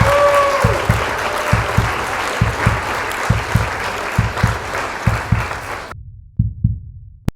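A steady low thumping beat, about two to three thumps a second, under a loud even hiss, both cutting off abruptly about six seconds in, followed by a single sharp click near the end.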